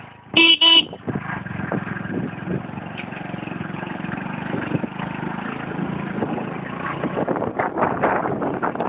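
Motorcycle horn beeped twice in quick succession, the loudest sound, then the motorcycle's engine running steadily under way, with road noise.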